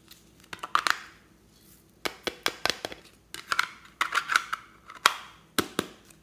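A hard plastic slime case being handled as its snap lid is pried at, giving sharp plastic clicks and snaps in several quick clusters. The sharpest snap comes about five seconds in.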